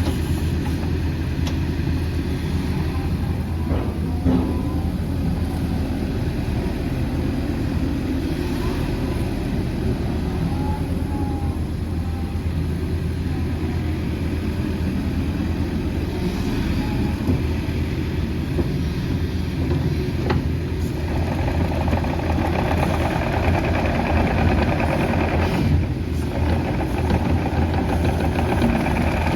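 Sany SY80U excavator's diesel engine running steadily, with a few scattered clicks and knocks. About two-thirds of the way through it grows louder and fuller.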